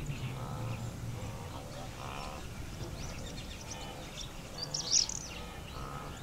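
Field sound of grazing wildebeest and zebra herds: short, faint animal calls come every second or two over a steady outdoor background, with a brief high bird chirp about five seconds in.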